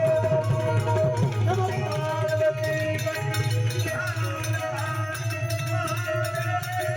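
Instrumental Indian folk-style music: sustained, slightly wavering melody notes over a steady low drone, with quick hand-drum strokes that fade out about two seconds in.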